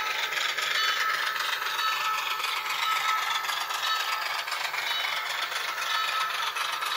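Diesel switcher engine sound from an ESU LokSound V5 Nano decoder in an N scale Baldwin VO-1000 model, played through a tiny 8x12 mm sugar-cube speaker while the locomotive runs on the track. The sound is steady and thin, with almost no low end.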